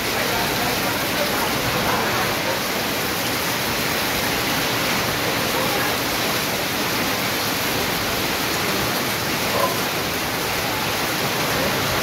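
Heavy rain falling steadily on a corrugated metal roof and the surrounding foliage, with runoff pouring off the roof edge: an even, unbroken rush.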